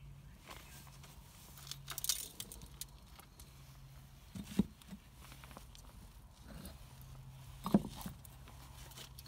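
Faint scattered rustling with a few soft knocks, over a low steady hum.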